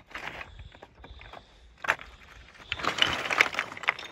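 Footsteps on loose scree: rocks shifting and clinking underfoot while walking down a talus slope, with a sharp rock knock about two seconds in and a busier stretch of crunching near the end.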